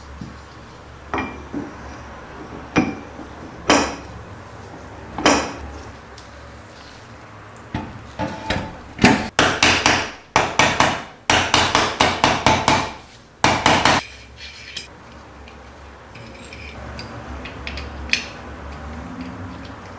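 Hammer blows on metal during workshop tool restoration: a few single strikes spaced a second or more apart, then a quick run of repeated blows lasting about five seconds in the middle, then it goes quieter.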